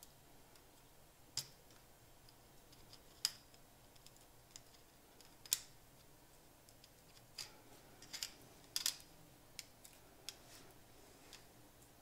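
Light, sharp clicks and taps of a metal pick and small plastic parts against an opened Digital Compact Cassette shell as it is put back together. They come singly at uneven intervals, with a quick cluster about eight to nine seconds in.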